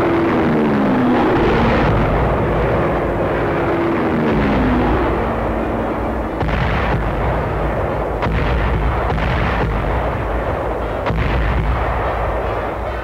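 Sound effects of an air attack on a steam train: a heavy, continuous rumble with a plane's falling whine twice in the first five seconds, then several sharp blasts from about six seconds on.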